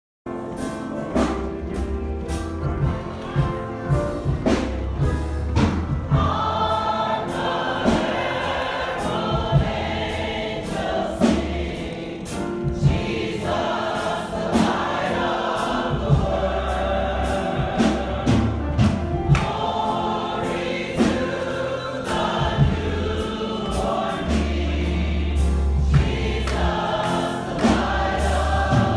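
Church congregation singing a gospel song together, backed by a steady drumbeat and a low bass line.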